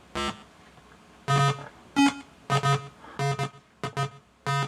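Homemade CMOS oscillator keyboard synthesizer sounding a series of short, buzzy electronic notes through its speaker, mostly one note with one higher note about two seconds in, as its divider chips give the same note in different octaves.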